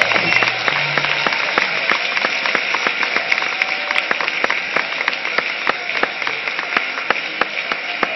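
A large audience applauding steadily: a dense patter of many hands clapping. The low notes of a music track fade out about a second in.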